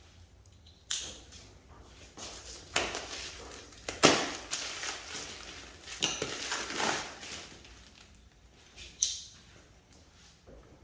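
Handling noise from a new heavy punching bag and its packaging: a few irregular rustles and knocks, the loudest a sharp knock about four seconds in.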